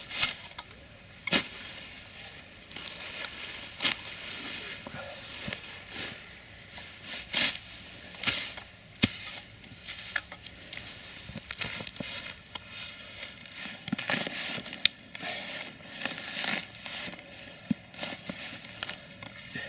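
A small spade chopping into grassy soil to dig out a comfrey plant's roots: irregular crunching cuts with rustling of grass and leaves in between.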